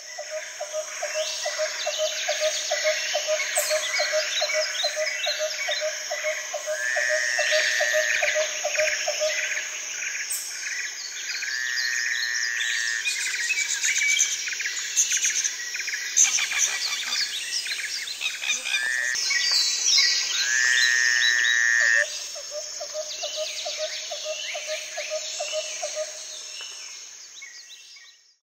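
Nature soundscape of frogs and birds calling together: many short chirps and whistled calls over a rapid, evenly pulsing frog trill. The trill stops about ten seconds in and returns after about twenty-two seconds, and the whole chorus fades out near the end.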